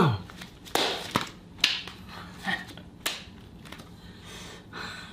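A person slipping and falling: a string of knocks and thumps, about six over a few seconds, with a short grunt or breath in the middle.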